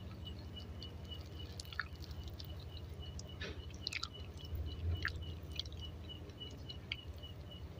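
Close-miked chewing of a soft dadar gulung, a rolled crepe filled with sweet grated coconut, with scattered wet mouth clicks.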